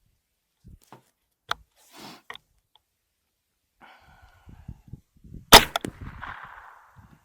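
A .22 LR rifle shot about five and a half seconds in, a sharp crack followed by a short echoing tail. A quieter sharp click comes about a second and a half in, with light handling knocks before the shot.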